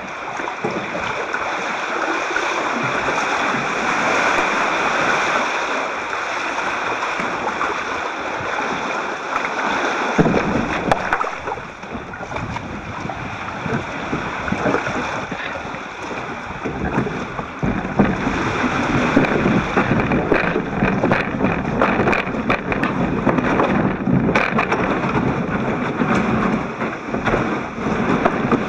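Sea water sloshing and waves washing around a sit-on-top kayak in a narrow rock gully, muffled by a waterproof camera housing. About a third of the way in the noise grows rougher and heavier, and from the middle on there are many scattered knocks and scrapes as the plastic kayak meets rocks and the shingle beach.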